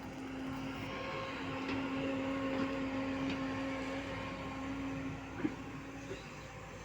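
JCB 140 excavator's diesel engine working under load with a steady hum that swells for a few seconds, eases off about five seconds in, and has a single sharp knock just after.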